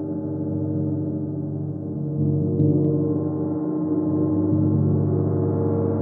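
31-inch Chinese white gong played with a soft mallet, ringing as a sustained, dense wash of many overtones. It swells louder about two seconds in and again near the end, with no sharp strikes.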